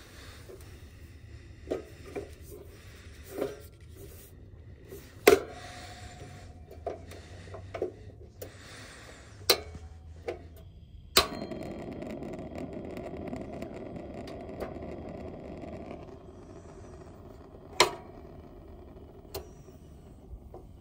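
Buddy portable propane heater being lit: clicks and knocks of handling its controls, then a sharp click about eleven seconds in followed by a steady hiss of the gas burning.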